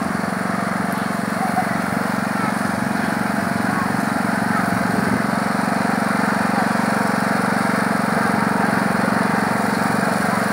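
Rally riding lawn mower's engine running steadily as it tows a loaded sled by rope across grass.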